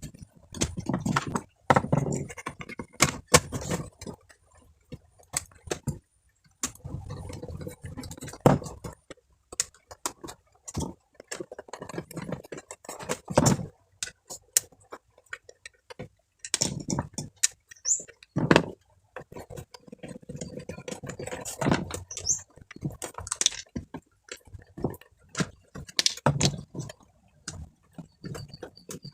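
Irregular clicks, taps and knocks of small hard objects being handled, with rustling between them.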